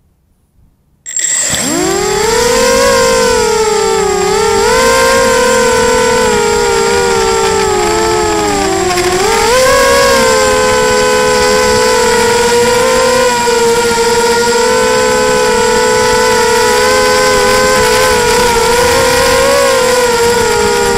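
Brushless motors and propellers of a Wasp 280 FPV quadcopter, heard close from its onboard camera: silent on the ground, then about a second in they spin up suddenly into a loud whine as it takes off and flies. The pitch wavers with the throttle, sagging and climbing again about halfway through, with a steady high-pitched tone above it.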